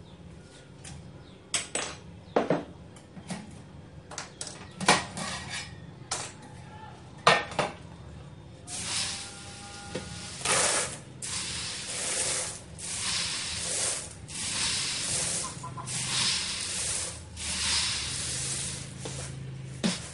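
Dark-roasted coffee beans scooped by hand out of a stainless-steel pot roasting drum, rattling and scraping against the metal in a run of swishes about once a second. Before that come several sharp metal clicks and knocks as the drum's lid is taken off.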